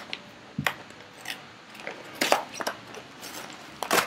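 Plastic toy packaging being torn open and handled: irregular crinkles and crackles, loudest about two seconds in and again near the end.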